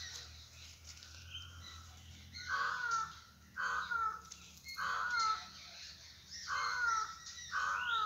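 A crow cawing five times in a series, about a second apart, beginning a couple of seconds in; each caw falls slightly in pitch. Fainter bird chirps come before the caws.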